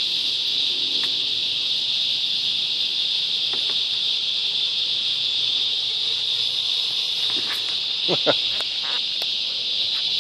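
Steady high-pitched trilling of an evening insect chorus, likely crickets, with a short cluster of knocks about eight seconds in.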